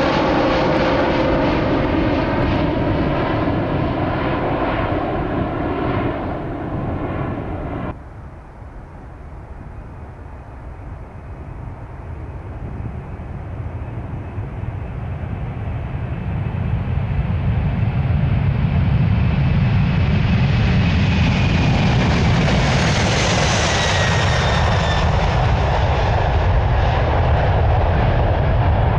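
Boeing 787-8 jet engines at takeoff thrust as the airliner climbs away. About eight seconds in, a sudden cut to the four jet engines of a Boeing 747-400F freighter on its takeoff roll, growing from faint to loud as it passes and lifts off, with a high whine sliding down in pitch near the end.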